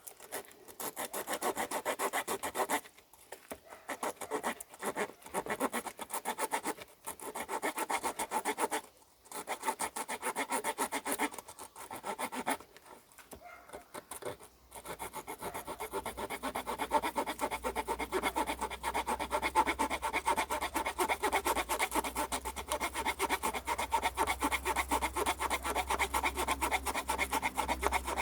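Victorinox Farmer X Alox pocket knife's small saw blade cutting a dried hardwood branch about 4 cm thick in quick back-and-forth strokes. There are several short pauses in the first half, and the sawing runs on without a break from about halfway.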